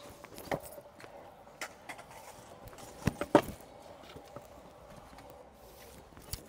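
Stunt scooter wheels rolling over a concrete skatepark surface with a faint steady hum, broken by the rider's foot pushes and a few sharp knocks, the loudest a little after three seconds in.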